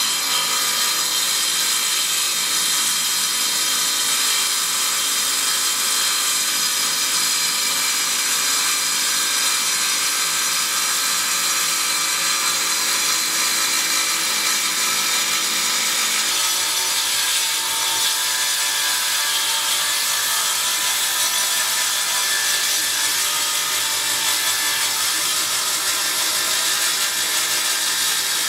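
Table saw running steadily, its circular blade cutting through a block of dark hardwood. The sound thins slightly a little over halfway through.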